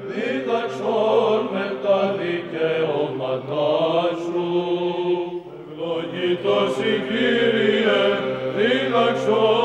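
Male choir singing Byzantine chant: a melody moves over a steady low held note, the ison drone. The singing pauses briefly a little past halfway, then resumes.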